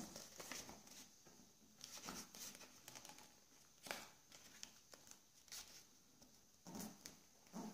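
Faint rustles and scrapes of origami paper being folded and creased by fingers against a wooden tabletop, several short ones a second or two apart.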